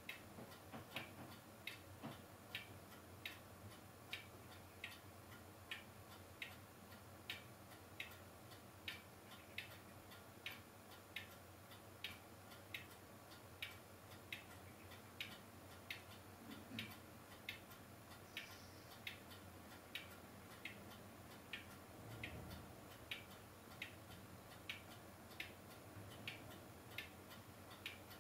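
Near silence with faint, regular ticking, a little over one tick a second, over a low steady hiss.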